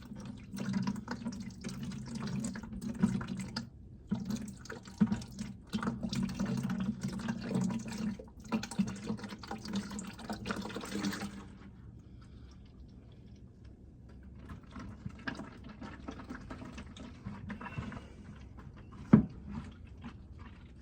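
Engine oil pouring out of the open drain hole and splashing into a drain pan, heavy for the first eleven seconds or so and then a fainter trickle. A single sharp knock comes near the end.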